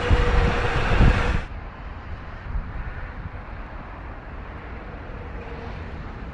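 Zero electric motorcycle riding past close by: a faint steady motor whine over tyre and wind noise. About a second and a half in it cuts to a quieter steady outdoor wind hiss.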